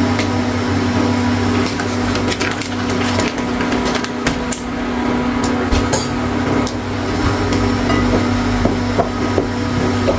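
Steady mechanical hum of a running kitchen appliance, with scattered light clicks and taps over it; near the end, chopsticks stir through dry starch in a ceramic bowl.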